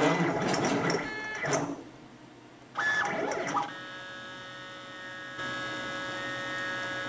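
Stepper motors of a CNC plasma table running as the machine moves, heard as a steady multi-tone whine that settles in about halfway through and steps up a little near five and a half seconds, after a brief lull about two seconds in.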